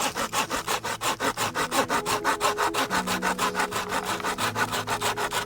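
Hand saw cutting through a thin hazel stick in fast, even back-and-forth strokes.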